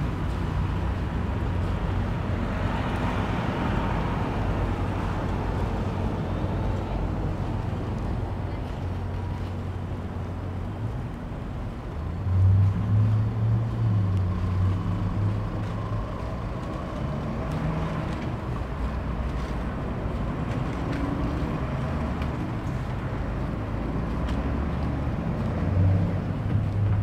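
City street traffic: cars passing with steady engine and tyre noise, one passing about three seconds in, and a louder low engine rumble about twelve seconds in and again near the end.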